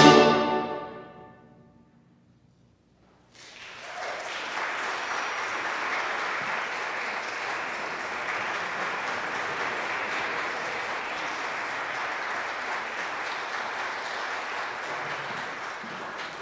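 A concert band's final held chord dies away in the church's long reverberation. After about two seconds of silence, audience applause starts and runs steadily, tapering off near the end.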